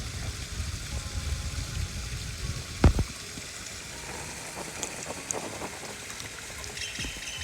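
Creek water running over a small waterfall, an even rushing hiss, with a low rumble in the first few seconds. A single sharp thump about three seconds in is the loudest sound, followed by a few faint clicks.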